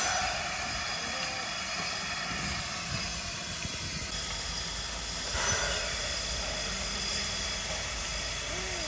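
Japanese C11 tank steam locomotive (C11 171) hissing steadily as it lets off steam.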